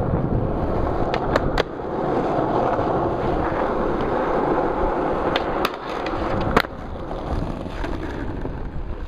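Skateboard wheels rolling over a rough paved path with a steady rumble, broken by several sharp clacks; the loudest clack comes about two-thirds of the way through, and the rolling is quieter after it.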